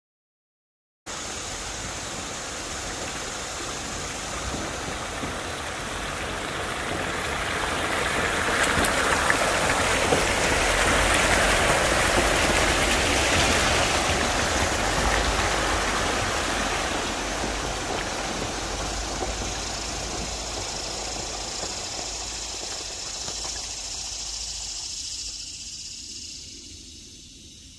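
A Jeep Wrangler JL towing a small off-road camper trailer wades through flood water: tyres churning and splashing, with the engine running low underneath. It builds to its loudest about ten to fourteen seconds in as the rig passes close, then fades as it moves away.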